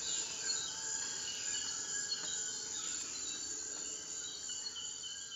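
Rainforest ambience: a steady chorus of crickets and other insects, with a few bird calls that slide down in pitch, slowly fading toward the end.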